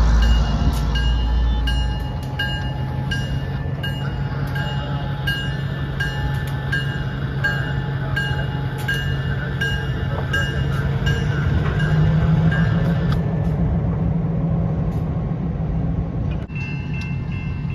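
Diesel locomotive engine running steadily as it moves a string of coal hopper cars along the track, with regular clicking from the rolling wheels. About a second before the end the sound cuts abruptly to steady high ringing tones.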